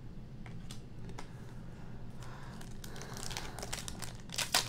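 Plastic wrapper of a Donruss football card pack crinkling as it is picked up and handled, with denser, sharper crackles near the end.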